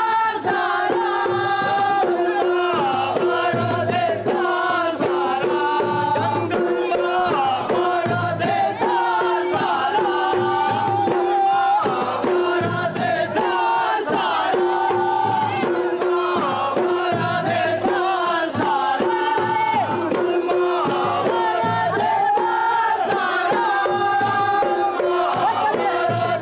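Music: a group of voices chanting together over drum beats, at an even loudness throughout.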